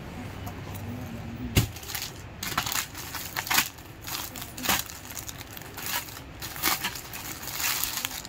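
Clear plastic garment packaging crinkling and crackling irregularly as a folded suit is handled and pulled out of it.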